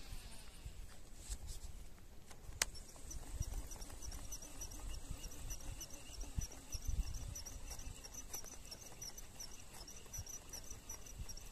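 Rhythmic high chirping, about three chirps a second, starting about two and a half seconds in, over a low rumble on the microphone. A single sharp click comes just before the chirping begins.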